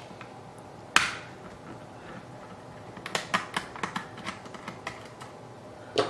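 Small screwdriver working screws out of the underside of a ThinkPad X220 laptop: one sharp click about a second in, then a run of light, irregular clicks and ticks of the tool on the screws and case.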